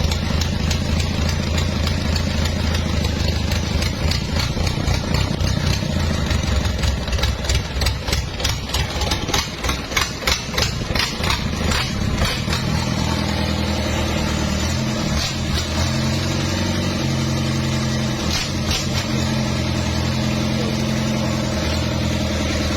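Mitsubishi PS100 diesel engine, freshly serviced, running continuously. From about six to twelve seconds in the running turns uneven with a run of rapid clicks, then it settles back to steady running.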